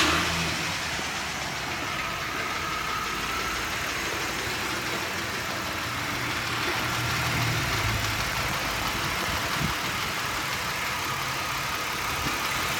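2006 Mitsubishi Raider's 3.7-litre V6 idling steadily. The owner takes the noise from its right-hand side for a tapping lifter, which replacing the front lifters has not cured.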